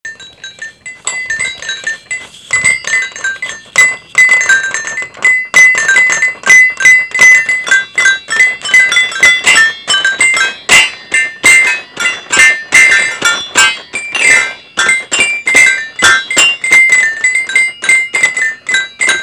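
Instrumental music: a fast melody of bright, high struck notes, with one high note coming back again and again. It starts softer and is at full level after about four seconds.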